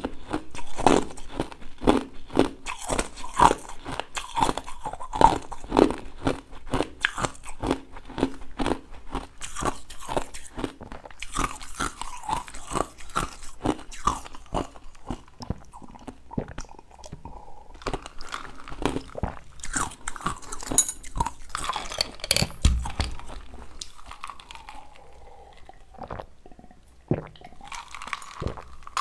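Ice being crunched and chewed close to a lapel microphone, many quick sharp crunches, coming thick and fast at first and thinning out in the second half.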